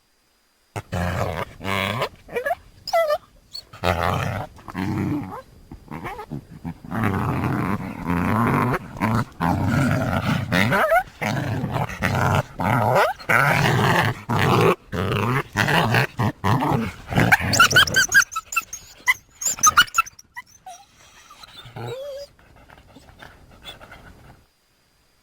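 Coyote vocalizations used as a creature's voice: a long stretch of harsh, noisy growls and snarls starting about a second in, then several higher cries that bend up and down near the end before it dies away.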